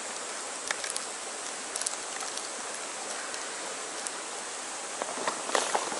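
Small clicks and rustles of a plastic tackle case and a hook packet being handled, over a steady outdoor hiss. The handling gets busier near the end.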